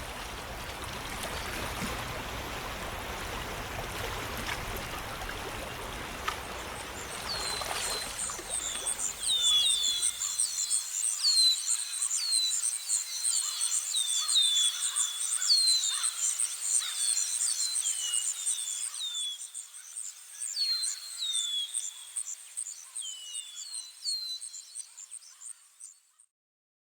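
Running water rushes steadily for the first several seconds, then fades out about ten seconds in. From about seven seconds a high, steady insect trill and many short, falling bird chirps take over, and they cut off abruptly near the end.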